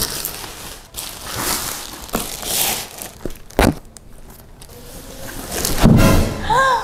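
Black plastic bag crinkling and tearing as it is cut and pulled off a large cardboard box, in a series of rustling strokes. Near the end comes a louder bump, then a short rising-and-falling pitched sound.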